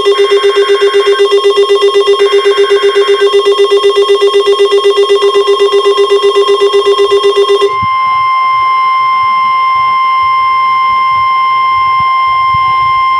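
Weather radio emergency alert: a rapidly pulsing alarm beep for about eight seconds, with two short buzzy data bursts of the alert header under it early on. It then switches to the steady single-pitch NOAA Weather Radio warning tone, which signals the severe thunderstorm warning that follows.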